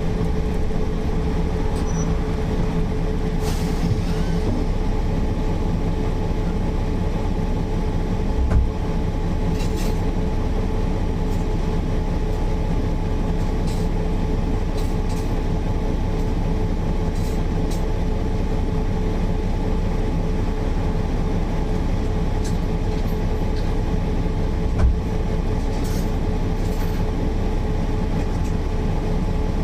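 Mercedes-Benz O408 bus under way at a steady speed, its diesel engine and drivetrain giving an unchanging drone with a steady whine. Light rattles and clicks come throughout, and two short low thumps, as from bumps, come about a third of the way in and near the end.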